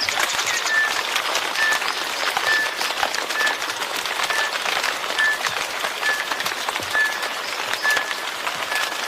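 Steady rain with a dense patter of drops. Over it, a short high chirp repeats evenly about once a second.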